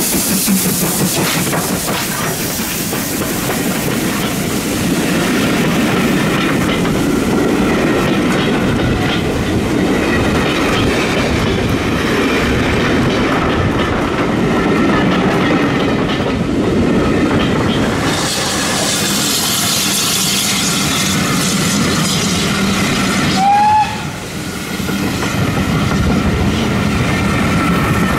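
GWR Modified Hall 4-6-0 steam locomotive 6990 passing close, then its coaches running by with a steady clickety-clack of wheels over the rail joints. There is a brief rising squeal about three-quarters of the way through.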